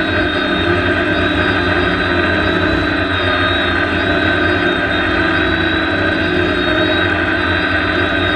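Electric motors and propellers of a DJI Naza-controlled multirotor drone running steadily as it hovers just above the grass, heard up close from its onboard GoPro: a loud, even whine made of several held tones over a low hum.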